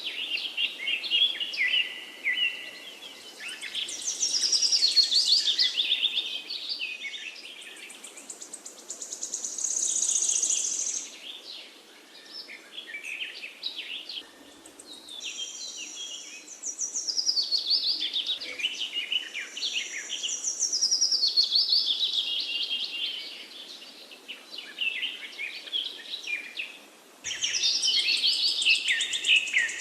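Several songbirds singing at once, overlapping phrases of rapid trills and chirps that come in bursts of a few seconds, over a faint steady background hush.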